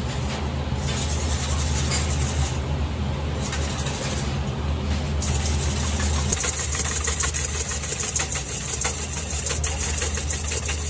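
Electric whisk whipping egg whites for meringue in a stainless steel bowl: a steady motor hum, and about six seconds in the whisk starts clicking and rattling against the bowl.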